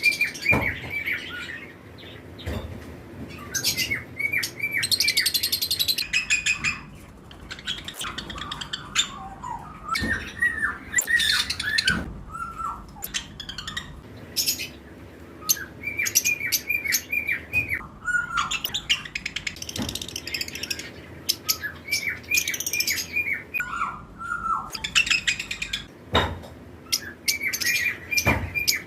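Several lovebirds chirping and squawking together, with short runs of quick repeated chirps and sharp shrill calls coming every second or two.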